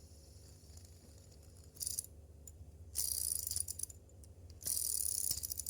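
Heavy metal linkage fidget spinner, a clone of the ACEdc Thunder, being flicked and spun: three bursts of high-pitched rattling whir from its bearing and linkage, a short one just under two seconds in and two longer ones at about three and five seconds.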